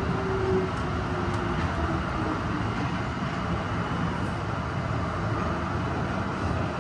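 Tokyo Metro Ginza Line subway train running through a tunnel, heard from inside the car: a steady rumble of wheels on rails, with a faint tone gliding down in the first couple of seconds.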